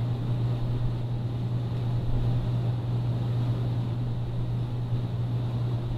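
A steady low hum with a faint even hiss, unchanging throughout.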